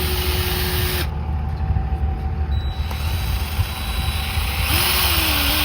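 Electric drill running with a steady whine that cuts off about a second in, then starts again near the end with a wavering pitch, over a low rumble. The bit is not biting, and the workers take it for a wood bit.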